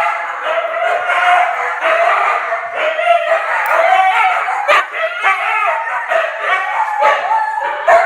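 Huskies vocalizing without a break: wavering, howl-like whining 'talk', with a couple of sharp yelps, about five seconds in and near the end.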